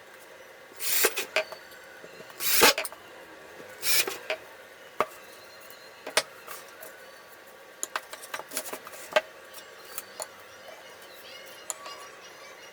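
Workshop handling sounds. Three short scraping or rasping bursts come in the first four seconds, the middle one the loudest. After them come scattered sharp clicks and knocks, with a cluster near the end.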